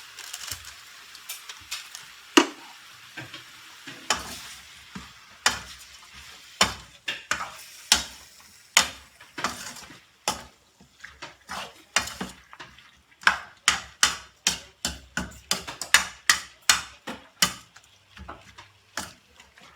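Chicken pieces frying in a pan, just coated with a sweet syrup, sizzling softly while a cooking utensil stirs them. The utensil scrapes and knocks against the pan over and over, sparsely at first and then about twice a second.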